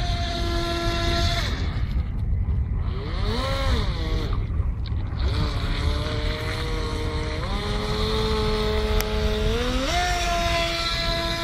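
Electric RC speedboat's motor whining. Its pitch drops and rises in steps as the throttle is eased and opened, with a quick up-and-down sweep about three and a half seconds in, over a steady low rumble.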